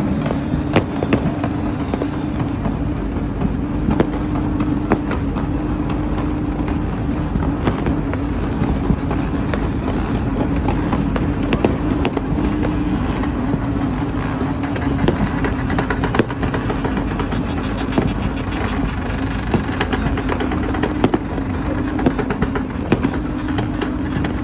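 Fireworks going off in quick succession: many sharp bangs and crackles over a dense, continuous rumble, with a steady low hum underneath.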